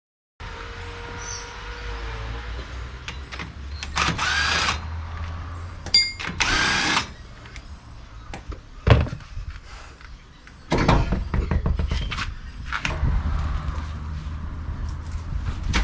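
A power tool running in two short bursts, with sharp knocks and clatter of tools working on a car's front wheel.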